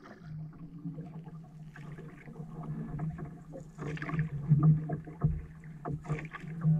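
Canoe paddles dipping and pulling through lake water, with irregular splashes and water moving along the hull, over a steady low hum.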